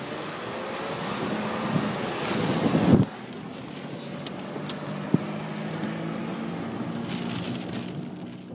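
Wind rushing over the microphone, building for about three seconds and then dropping off suddenly, followed by the steady low hum of a car's engine with a few faint clicks.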